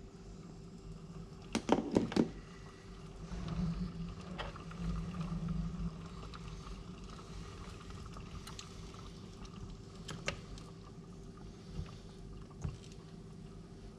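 La Pavoni Europiccola lever espresso machine during a shot pull: a quick run of sharp knocks about two seconds in, then a low rumble for a couple of seconds, then scattered light ticks over a steady faint hum.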